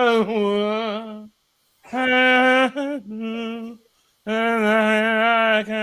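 A man singing a tune without words, in long held notes broken by short pauses.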